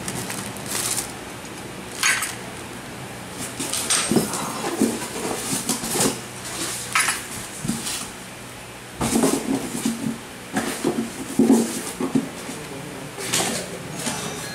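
Clear plastic packaging crinkling and metal machine parts clinking and knocking as the steel rail pieces and bar of a fabric-cutting machine set are handled and laid down. The sounds come as irregular clicks and rustles, louder in a cluster about two thirds of the way through.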